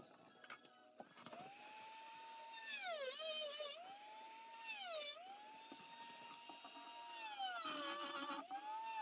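Dremel rotary tool whining at high speed, starting about a second in. Its pitch sags several times as it bites into the plastic blaster shell, then climbs back.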